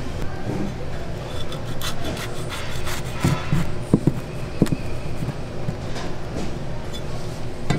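Crispy fried pork cutlet burger crackling and crunching as it is pressed down and cut through, with a few sharp crunches in the middle, over a steady background hum.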